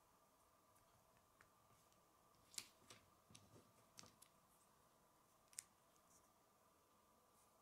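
Faint clicks of small plastic Lego pieces being handled and snapped together, a handful of sharp ticks clustered between about two and a half and six seconds in, over a faint steady hum.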